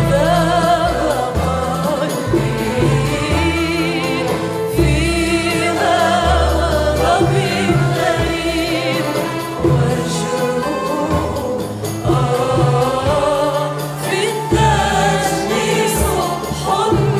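Live Arabic song performed by a mixed choir with an oriental orchestra of bowed strings, the voices singing with vibrato over a strong bass line.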